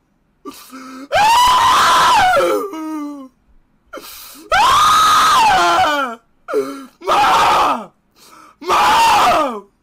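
A young man screaming four times in a high voice, each long cry held and then sliding down in pitch, with short gasping breaths between them. He is crying out over a lower lip swollen by suction from the lip challenge.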